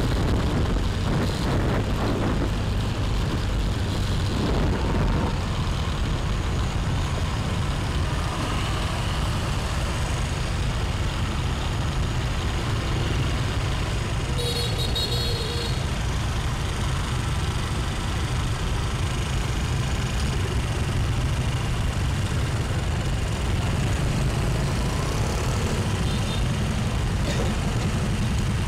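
Steady low rumble of a motorbike ride through city traffic, with its engine and road noise running under wind on the microphone. A brief high-pitched sound comes about halfway through.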